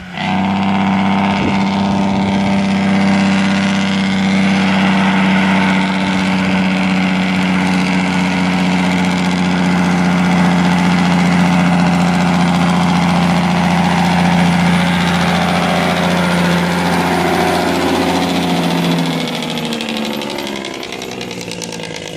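A vehicle's engine running at a steady pitch, then slowing with a falling pitch and quietening about nineteen seconds in.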